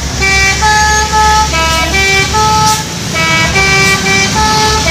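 Indonesian 'telolet' musical bus horn playing a tune of short stepped notes, over the low rumble of a bus engine.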